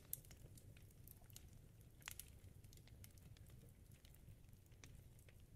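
Near silence: faint low room hum with a few soft clicks.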